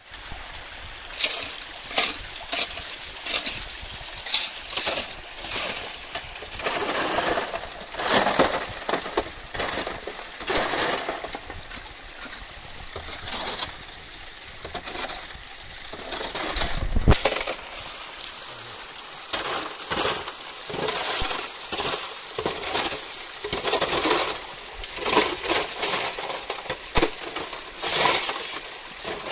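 Creek gravel and water being washed through a classifier screen onto a gold sluice box: water splashing and pouring in uneven rushes, with sharp clinks and rattles of small stones.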